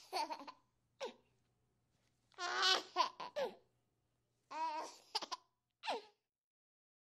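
A baby giggling and babbling in four short bursts, with silent gaps between them.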